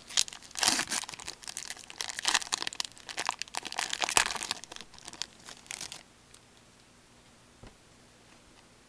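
Foil trading-card pack wrapper crinkling and tearing as the pack is opened, in dense crackly bursts for about six seconds, then it stops.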